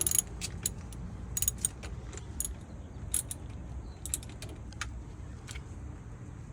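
Irregular metallic clicks and clinks from a hand tool working the positive battery cable connection loose, some in quick little clusters, over a steady low hum.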